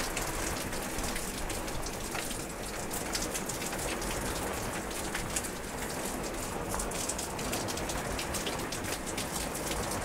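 Steady heavy rain falling, with many separate close drops ticking sharply through the hiss.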